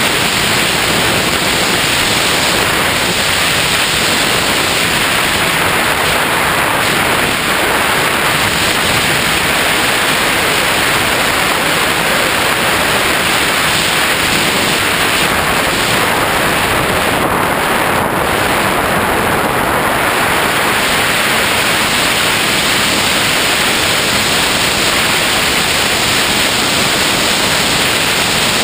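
Steady loud rush of airflow over a GoPro mounted on a Skywalker X5 flying wing in flight: an even roar with no clear motor tone.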